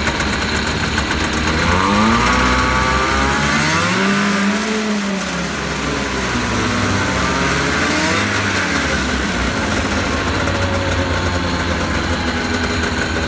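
1979 Yamaha Enticer 340 snowmobile's two-stroke engine running on the bench. It idles, is revved up with the throttle to a peak about four seconds in and let back down, gets a shorter blip about eight seconds in, then settles to a steady idle.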